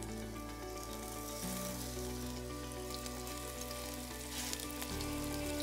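Flour-coated chicken breasts sizzling steadily as they fry in hot olive oil in a nonstick pan.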